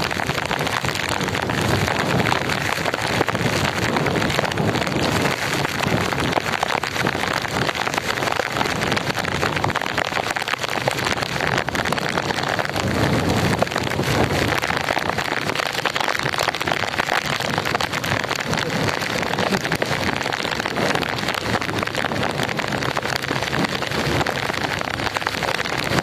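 Very heavy rain pouring down hard on a road, a steady, loud hiss, with the wash of traffic driving through the wet; a vehicle passes close about halfway through.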